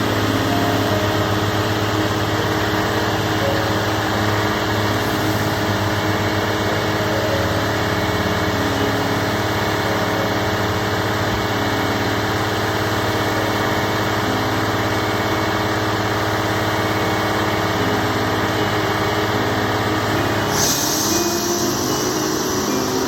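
Small engine of construction equipment running steadily at a concrete pour. Near the end a rising whine and a hiss join in.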